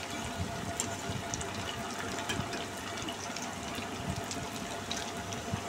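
Breadcrumb-coated bread-and-potato donuts deep-frying in hot oil over a high flame: a steady sizzle and bubbling, scattered with small crackling pops.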